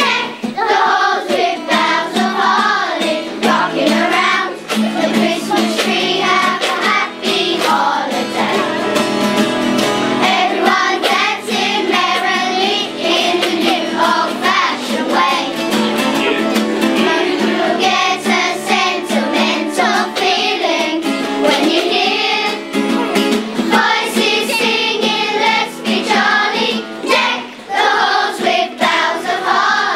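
A choir of schoolchildren singing a Christmas carol together, many young voices at once.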